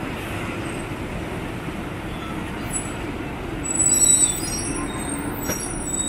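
Busy bus-terminal noise: city buses running with a steady engine din. About four seconds in, a high-pitched squeal comes in and carries on.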